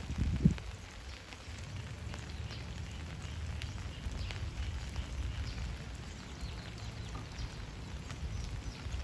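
Rain falling, with scattered faint drops ticking over a steady low rumble. There is a short burst of louder low noise in the first half-second.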